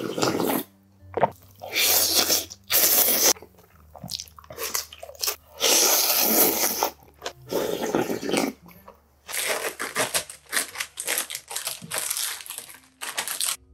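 Close-miked eating sounds: loud crunchy bites and chewing of fried dumplings and slurping of tonkotsu ramen noodles, in irregular bursts. From about nine seconds, rapid crinkling of a plastic food package being handled.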